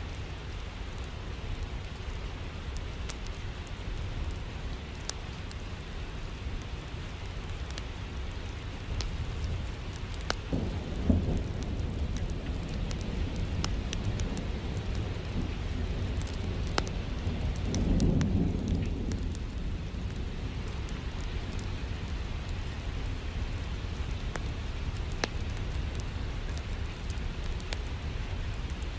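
Steady rain, with two low rolls of thunder, about a third of the way in and again a little past halfway. Scattered sharp ticks run through it.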